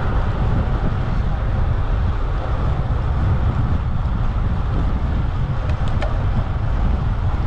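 Steady wind noise rushing over an action camera's microphone as a road bike rides along at speed.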